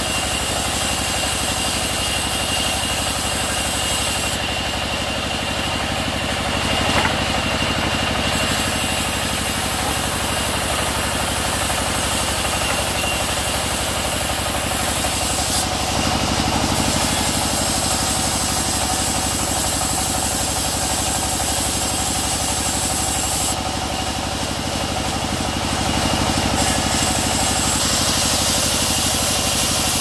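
Sawmill machinery running steadily: a continuous engine drone with a thin, steady high whine above it.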